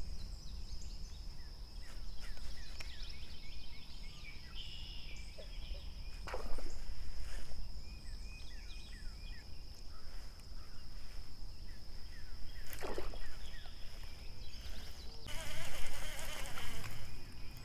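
Outdoor pond ambience: a steady high insect drone with scattered short bird chirps. Two brief louder sounds come about six and thirteen seconds in, and a stretch of rougher noise comes near the end.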